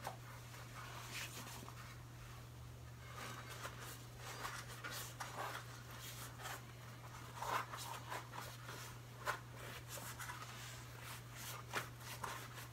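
Faint rubbing and scuffing of a rubber bicycle inner tube being tucked by hand into a new 26x1.75 whitewall tire, with a few sharper clicks in the second half. A steady low hum runs underneath.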